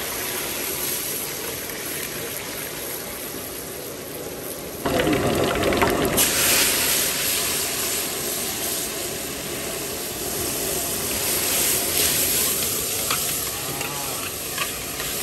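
Minced garlic frying in hot oil in a large pot, sizzling steadily. The sizzle gets much louder about five seconds in as the garlic hits the oil, and a few scrapes of the ladle against the pot come near the end.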